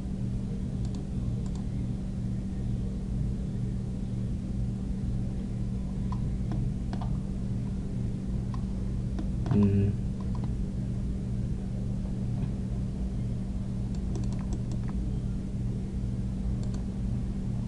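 Scattered computer keyboard and mouse clicks over a steady low hum.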